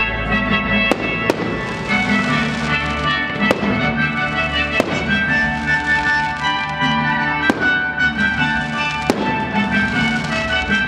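Fireworks going off: about six sharp bangs a second or two apart, over loud, steady music.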